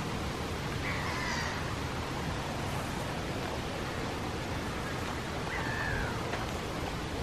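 Bird calls over a steady outdoor hiss: two drawn-out calls that fall in pitch, one about a second in and one near the end.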